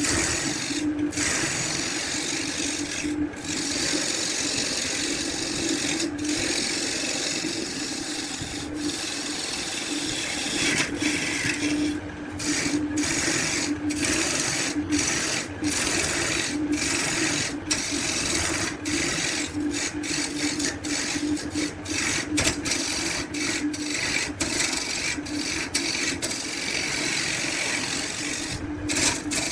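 Wood being worked with a tool: continuous rasping over a steady low hum, broken by short pauses about once a second in the second half.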